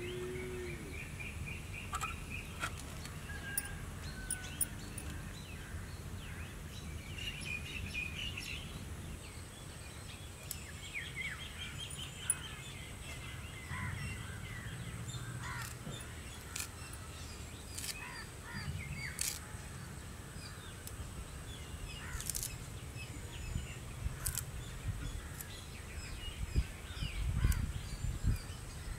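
Outdoor rural ambience: birds chirping and calling on and off, with scattered sharp clicks and a thin steady high tone from about a third of the way in. Near the end come a few soft knocks of a knife chopping banana florets on a wooden board.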